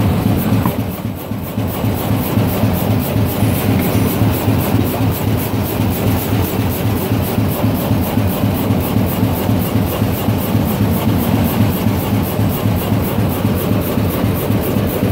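GTHQ-500×2 double-line plastic bag making machine running at speed, with a rapid, even clatter over a steady low hum.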